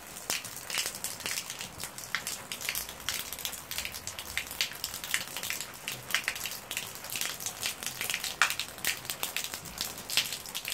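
Rain falling, with many irregular sharp taps of drops hitting hard surfaces over a steady hiss.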